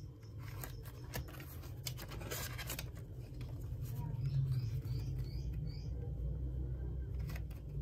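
Hands handling paper banknotes: irregular rustling with small scrapes and clicks as the cash is sorted and swapped between envelopes.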